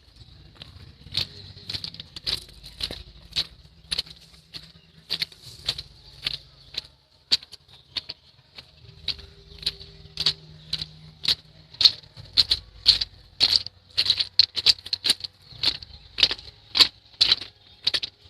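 Irregular short, sharp, high-pitched clicks or chirps, one to three a second, coming thicker and louder in the second half, over a faint low hum.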